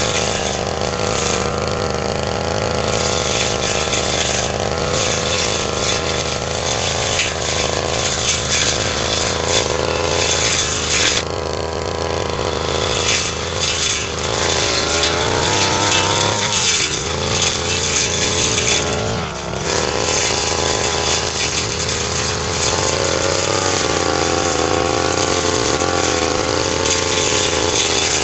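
Brush cutter engine running hard while its blade cuts fern undergrowth, the engine note wavering with the load and easing briefly about eleven seconds and again about nineteen seconds in.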